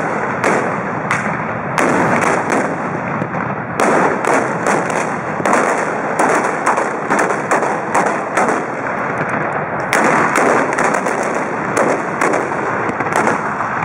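Trabucs, Catalan black-powder blunderbusses, fired by a group in a ragged continuous volley: loud overlapping shots, several a second, with no real pause.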